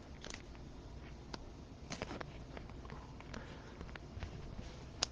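Faint scattered clicks and light rustling of trading cards and plastic card sleeves being handled, with one sharper click near the end.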